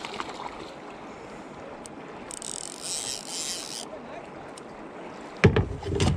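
River water washing against a small boat, with wind on the microphone. A brief bright hiss comes about two seconds in, and loud knocks near the end as a landing net is handled.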